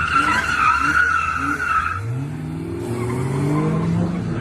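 Car tyres squeal for about two seconds, then a car engine revs up, its pitch rising.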